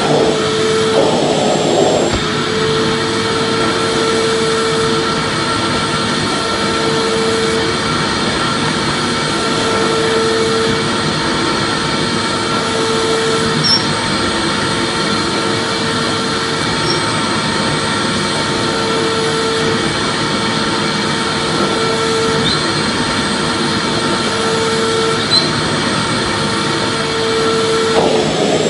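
Vacuum cleaner running continuously: a steady rushing hiss with a thin high whine and a low hum that swells and fades about every two and a half seconds.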